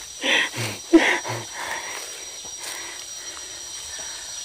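Forest background with a steady high-pitched insect drone. A few short breathy sounds come in the first second and a half.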